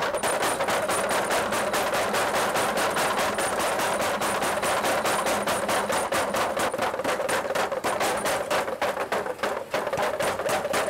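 Mechanical power hammer forging a red-hot iron bar on its anvil die: a rapid, even run of heavy blows, several a second, with a steady tone beneath them.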